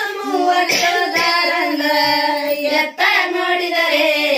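Women singing a Kannada devotional folk song to Mahadeva together, unaccompanied, drawing out long held notes, with a brief break for breath about three seconds in.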